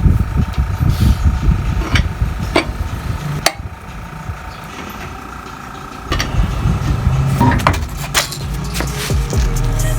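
Scattered sharp clanks and knocks, like tools being handled, over a low rumble.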